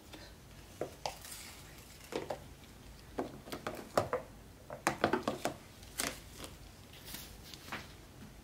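Tissue paper rustling and crinkling in short, irregular bursts as it is handled and folded, with small clicks and taps.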